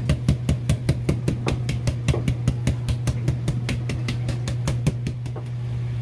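Quick, even strokes of a knife-sharpening steel, about five a second, stopping about five seconds in. A steady low hum runs underneath.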